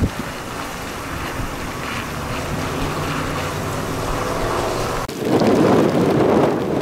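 Thunderstorm rain and wind noise, a steady rush that jumps abruptly louder and denser about five seconds in.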